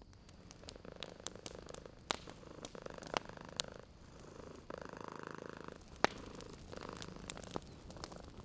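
A domestic cat purring close up in slow swells, one with each breath, over a wood fire crackling with scattered sharp pops; the loudest pop comes about six seconds in.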